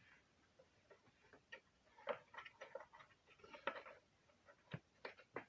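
Faint scattered clicks, taps and brief rustles of a vacuum cleaner motor and its foam seal being fitted back into the plastic housing by hand, with a few sharper knocks in the middle.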